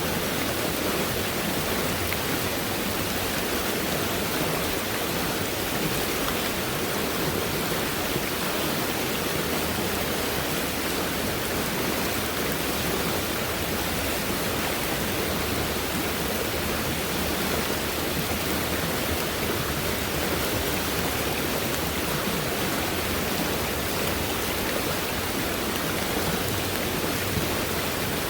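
Fast-moving stream running high after heavy rainfall, its water rushing in a steady, unbroken roar.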